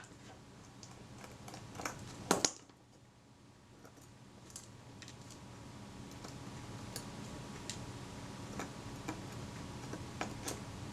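Sporadic light clicks and ticks of a small screwdriver and tiny screws against metal as screws are taken out of a camera lens's focusing mount, with two sharper clicks about two seconds in, over a faint steady hum.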